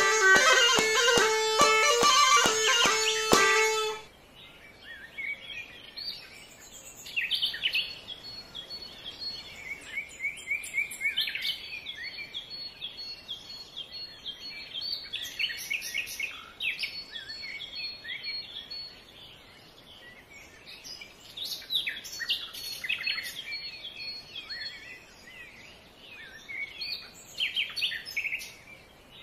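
Plucked-string music stops abruptly about four seconds in. Several birds then sing and chirp, in short calls and repeated high notes that come and go.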